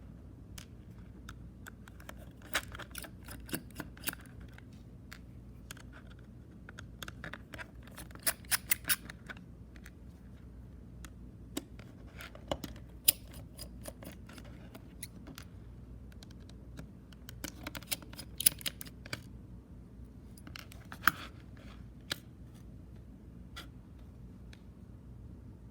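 Sharp clicks, taps and short crinkles of a sealed plastic-wrapped audio cassette being unwrapped and handled, coming in irregular clusters.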